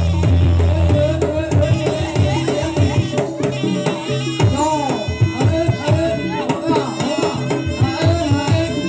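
Live jaranan music: hand drums beat a fast, dense rhythm under sustained melodic lines that bend in pitch. A deep low tone dies away within the first second.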